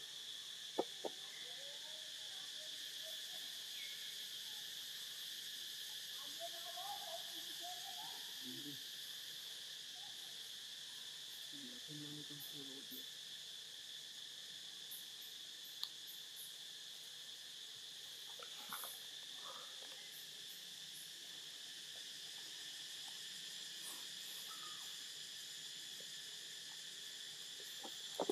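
Steady, high-pitched chorus of insects, with a few faint wavering calls partway through and a few short, sharp clicks.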